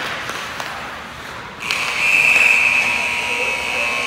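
Rink buzzer starting about a sixth of the way short of two seconds in and sounding one long steady high tone, over light clicks of sticks and skates on the ice.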